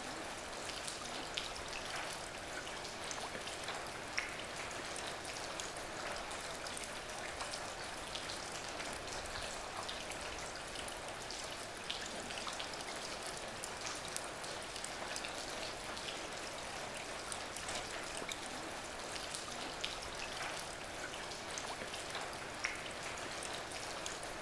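Steady pattering water ambience with scattered small drips and ticks.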